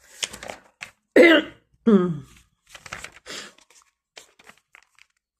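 A woman coughs twice in quick succession, a little over a second in and again under a second later, each cough falling in pitch, with faint small noises around them.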